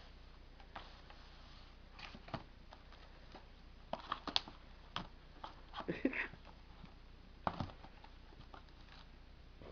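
Cat clawing and batting at a cardboard scratcher box: faint, irregular scratches and taps, busiest around the middle.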